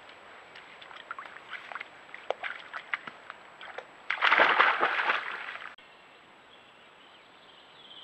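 European badger pushing through tall grass close to the trail camera: scattered rustles and snapping stems, then a loud burst of rustling about four seconds in that lasts a second and a half and cuts off suddenly.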